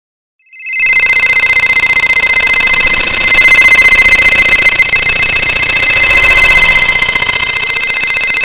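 Cell phone ringtone sound effect stacked many times over into one loud, continuous, distorted din of high tones. It starts about a second in and stops just before the end.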